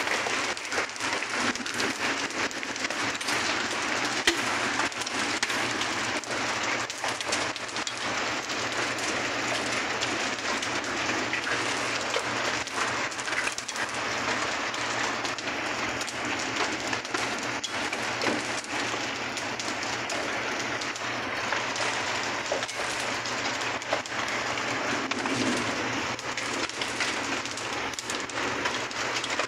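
Hail mixed with rain pelting pavement and grass: a dense, steady patter crowded with sharp ticks from the falling hailstones.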